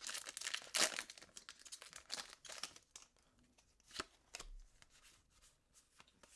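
Foil wrapper of a Pokémon booster pack being torn open and crinkled, loudest in the first three seconds, then a few quieter clicks and rustles.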